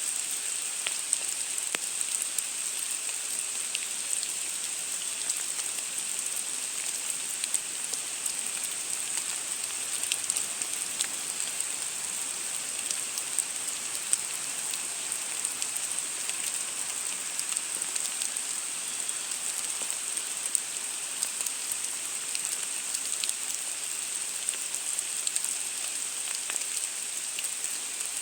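Steady rain falling, an even hiss scattered with the ticks of individual drops.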